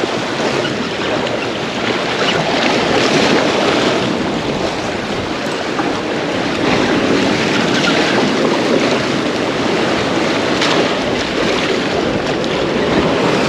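Steady rushing of wind buffeting the microphone, mixed with surf washing below a pier, swelling and easing without a break.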